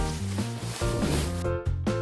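Background music with a bouncy, steady bass line and held notes, with a hiss over it that cuts off about a second and a half in.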